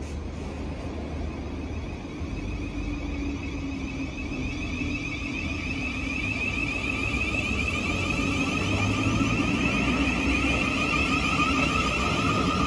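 Thameslink Class 700 electric multiple unit pulling out of the platform: a steady electric motor whine over the rumble of wheels on rails, growing louder as the carriages pass.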